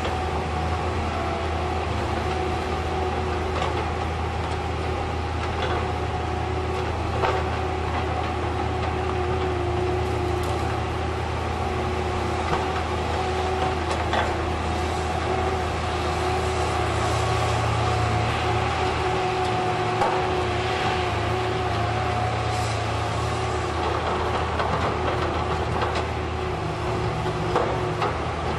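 Diesel engines and hydraulics of a knuckleboom log loader and a CSI DL 4400 slasher saw running steadily: a constant low drone with a steady whine above it, broken by a few sharp knocks of logs being handled.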